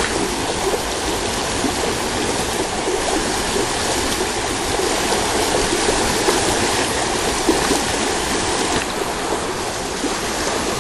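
River water rushing steadily over a rocky riffle.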